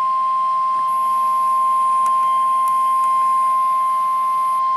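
NOAA Weather Radio 1050 Hz warning alarm tone: a loud, single steady tone held throughout, the attention signal that a warning message is about to be read.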